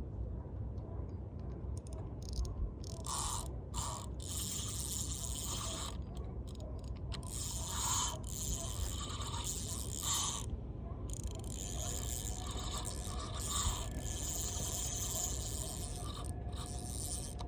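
Fishing reel working under load with a hooked fish on the line, a ratcheting, scraping whir coming in uneven bursts every second or so, over a steady low rumble.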